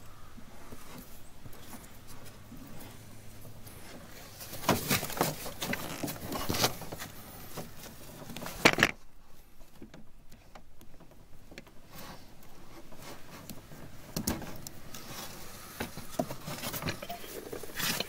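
Scattered clicks, knocks and handling noises of hands and tools working on a truck door and its trim, with the loudest knock about eight and a half seconds in and a short quiet spell just after.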